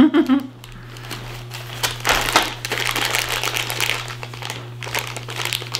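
Thin plastic zip-top bags of wooden beads crinkling as they are handled, a dense run of crackles and small clicks starting about two seconds in.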